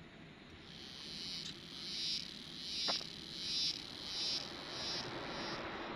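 An insect calling in a series of about seven high-pitched pulses, each swelling and then cutting off sharply, starting about a second in. A single light click sounds near the middle.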